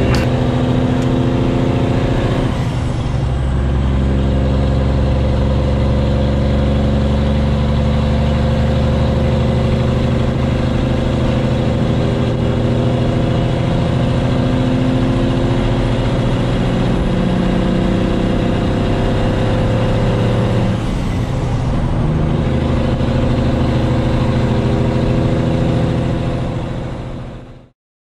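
Semi truck's diesel engine running under way, heard from inside the cab. The engine note breaks briefly and changes pitch twice, about three seconds in and again about twenty-one seconds in, as with gear changes. It fades out near the end.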